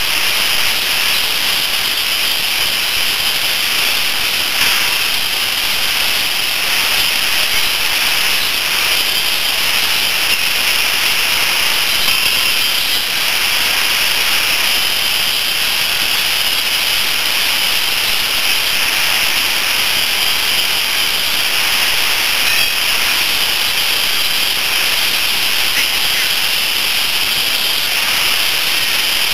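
A loud, steady hiss.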